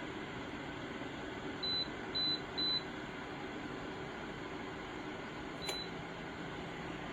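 DREO ceramic space heater's control panel beeping three times in quick succession, then once more with a click a few seconds later as a button is pressed, over the heater's fan running steadily.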